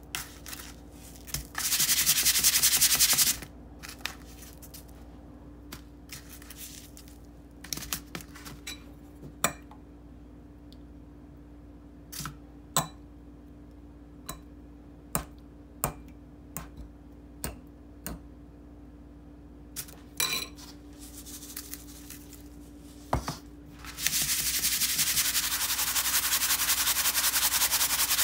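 Breadcrumbs sliding and rattling across a paper plate as it is shaken back and forth to coat perch fillets. This comes twice: briefly about two seconds in, and again for the last four seconds. In between there are scattered light taps as fingers press the crumbs onto the fish.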